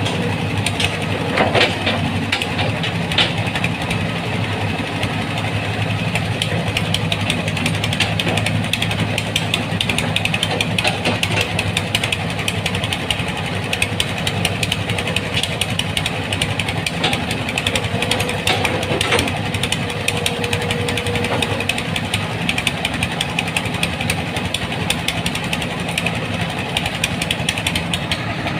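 Hitachi Zaxis 210F-5G excavator's diesel engine running steadily with a dense rattling clatter, while the machine is put through a working check.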